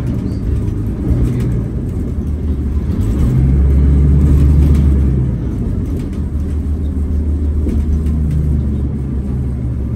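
New Flyer D40LF transit bus under way, heard from inside the cabin: the low drone of its Cummins ISL inline-six diesel with road rumble. It swells louder for a couple of seconds near the middle, then eases back.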